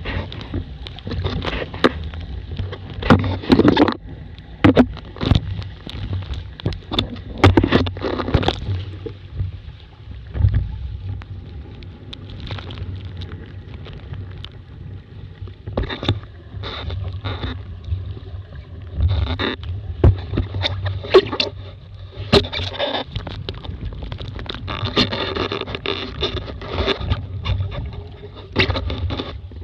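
Laser dinghy's hull slapping through choppy waves, with irregular splashes of spray hitting the boat and camera, over a steady low rumble of wind buffeting the microphone.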